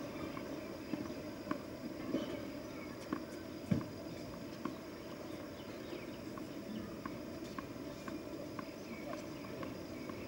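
Open-air ambience at a tennis court between points: a steady background hum with scattered light taps and clicks, and one louder thump a little under four seconds in.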